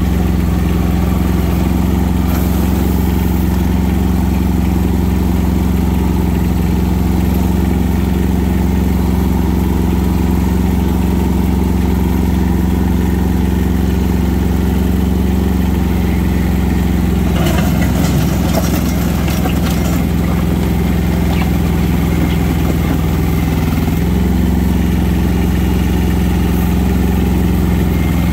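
Kubota compact tractor's diesel engine running steadily. About two-thirds of the way through there are a few seconds of clattering over the engine, and the engine note dips briefly soon after.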